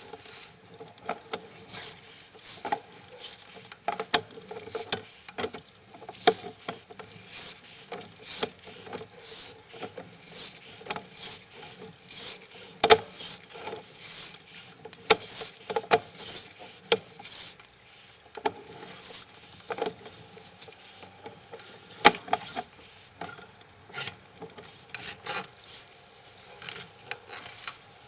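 Sewer inspection camera's push cable rubbing and scraping in irregular strokes as it is pulled back out of the sewer line.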